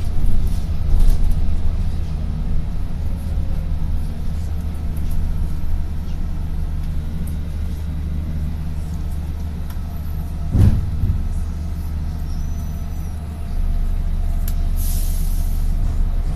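Bus interior: the bus's engine and road rumble run steadily, with one knock about ten seconds in. Near the end comes a short hiss of air from the air brakes as the bus comes to a stop.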